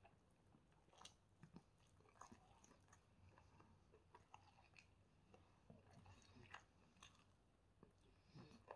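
Faint close-up eating sounds: moist chewing and irregular small clicks and crackles as chicken shawarma is pulled apart by hand.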